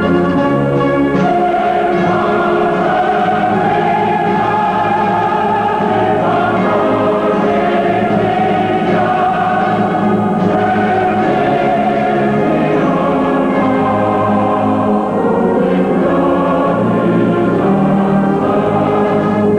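Orchestral music with a choir singing long held chords that change every few seconds.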